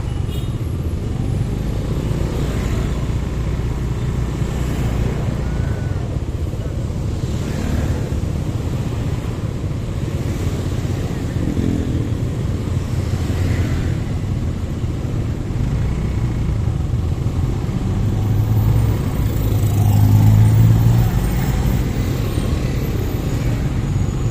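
Street traffic heard from a motorcycle waiting in a queue: motorcycle and car engines idling in a steady low rumble. A nearby engine grows louder for a few seconds about three quarters of the way through.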